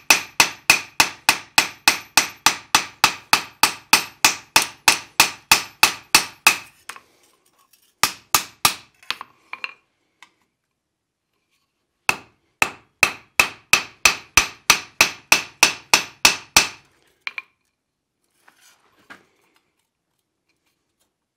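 Blacksmith's hammer striking a hot iron ladle disc on an anvil, smoothing and thinning it: quick, even blows of about four a second, each with a metallic ring. The hammering stops about seven seconds in, comes back in a short burst around eight seconds, then runs again from about twelve to seventeen seconds before stopping.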